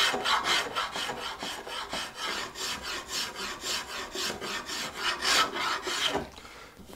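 Metal spokeshave shaving wood from a guitar neck in quick, even hand strokes, about four a second, each a short scraping rasp. The strokes stop about six seconds in.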